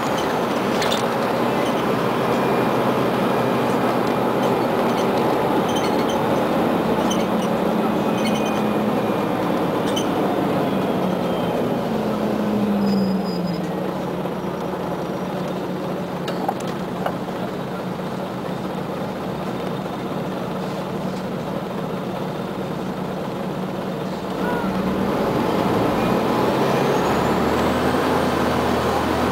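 Articulated Scania CN94UA OmniCity city bus heard from inside while under way: the diesel engine drones steadily. About halfway through its note falls and it goes quieter as the bus eases off in slow traffic, then it grows louder again a few seconds before the end as the bus pulls on.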